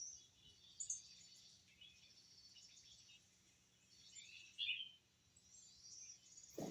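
Near silence with a few faint, scattered high-pitched chirps, the clearest about two thirds of the way through.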